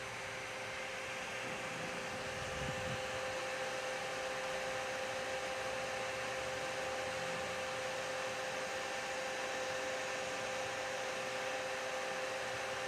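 Dell OptiPlex 3020 desktop computer's fan running loud: a steady whir with a steady whine in it, growing a little louder a few seconds in.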